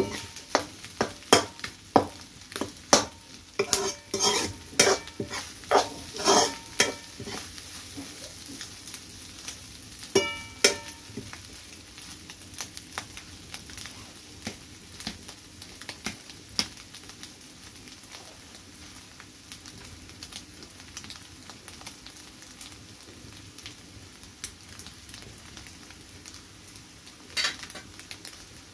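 Metal spatula scraping and knocking against a small steel pan while stirring egg bhurji, with a steady sizzle of frying under it. Over the first several seconds the spatula clatters rapidly. There is a ringing clank of the pan about ten seconds in, then mostly sizzle with only occasional scrapes, and one more knock near the end.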